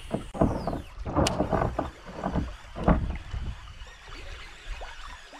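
Sounds of a kayak on the water: irregular splashes and knocks against the plastic hull, with a sharp click a little over a second in.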